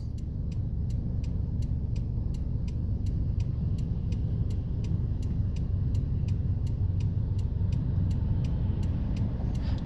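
Freight train cars rolling past: a steady low rumble of steel wheels on rail, with evenly spaced clicks about three times a second.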